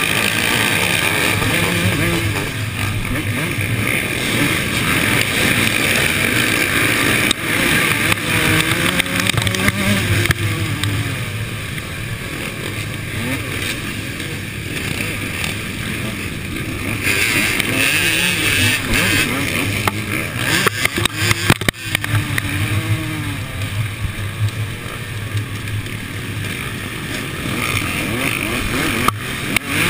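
A pack of motocross bikes racing, heard from close behind, with the nearest two-stroke engine's pitch rising and falling as the throttle is opened and closed. A cluster of sharp knocks about twenty-one seconds in.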